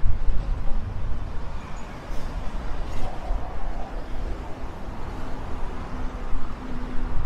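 City street traffic: a city bus and cars driving past, with a steady rumble of road noise and a faint engine hum in the second half.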